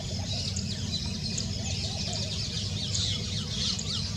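Many small birds chirping together in a dense, continuous chorus of short high notes, over a steady low rumble.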